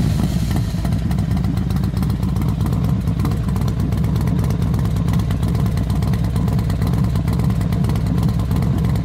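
Motorcycle engine running steadily at one constant speed, without revving.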